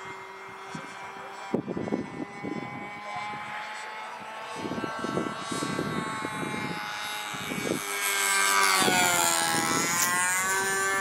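Engine of a Challenger 40 Sport radio-controlled model airplane, a steady high whine overhead. It grows louder about eight seconds in as the plane passes close, and its pitch falls as it goes by. Irregular low rumbles are heard earlier.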